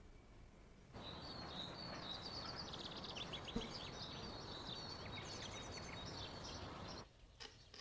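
Outdoor ambience: small birds chirping and twittering over a steady background hiss. It starts suddenly about a second in and cuts off near the end.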